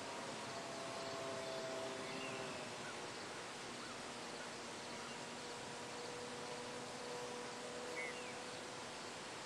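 Distant Graupner Speed 600 brushed electric motor turning an 8x6 APC propeller on a model Cub in flight: a thin, faint hum whose pitch drifts slowly as the plane moves across the sky, over outdoor hiss. A couple of faint chirps come near the end.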